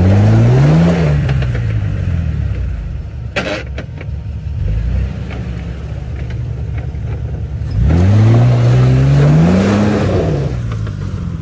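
Jeep Wrangler engine revving hard twice under load on a steep off-road climb, each time rising in pitch and then falling away, with the tyres spinning in mud. A single sharp knock about three and a half seconds in.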